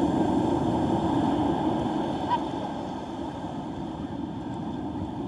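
Storm-driven Gulf surf breaking and washing ashore: a low, noisy rush that builds in the first second and eases off after about two seconds.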